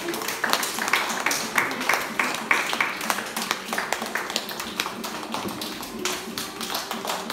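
Applause from a small group of children clapping their hands.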